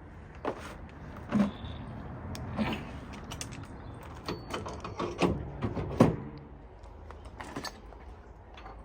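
Irregular metallic clinks and knocks of tools and parts being handled during semi-truck wheel hub work, some with a brief ring, the loudest about a second and a half in and again about six seconds in.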